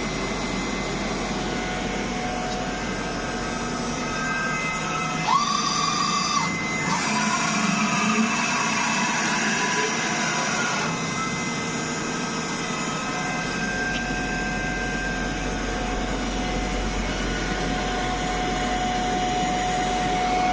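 MAHO MH 600 E CNC milling machine running, a steady machine hum with whining tones. About five seconds in a higher whine starts and stops after about a second, and from about seven to eleven seconds the machine grows louder with whines that slide in pitch before settling back to the steady hum.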